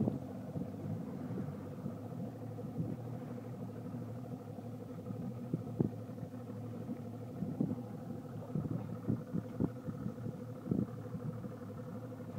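Boat motor running steadily with a low hum, with scattered short knocks over it.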